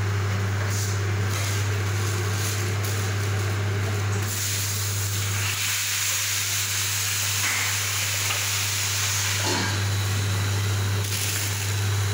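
Steady low machine hum, with a hiss over it from about four seconds in until about eleven seconds.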